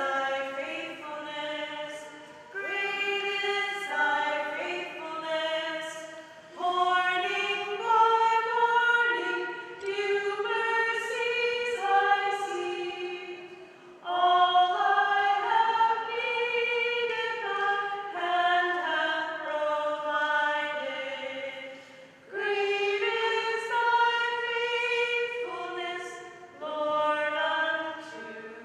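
A song sung slowly in long held notes, in phrases of a few seconds with short pauses between.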